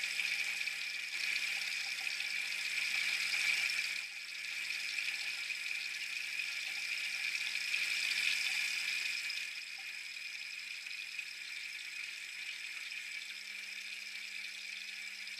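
A machine running with a steady high-pitched whine over a low hum. The sound shifts slightly about four seconds in and again near ten seconds.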